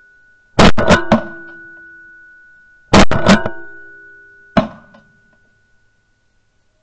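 Percussive music stabs of sharp plucked-string hits: two clusters of three quick strikes about two seconds apart, each leaving notes ringing and fading, then one last single hit about four and a half seconds in.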